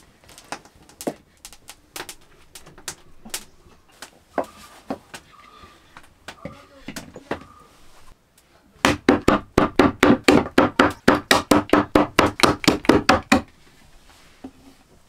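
Rapid chopping of goat meat and bone with a large curved knife on a wooden log block, about six hard blows a second for some four and a half seconds, starting about nine seconds in. Before it, only scattered faint clicks and knocks.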